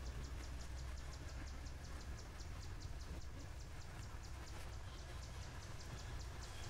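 Insects chirping in an even, rapid, high-pitched pulse of about six a second, over a steady low rumble.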